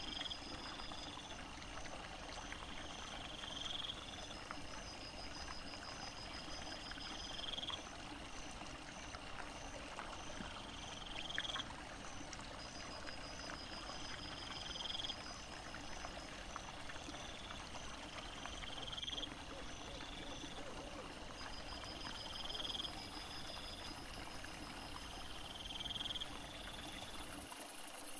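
Night-time animal chorus: a short pulsed call repeating about every two seconds, each swelling toward its end, with a faster, higher ticking series between, over a steady hiss.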